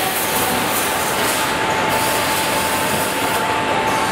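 EVA foaming press machinery running: a loud, steady mechanical noise with a thin constant whine through it.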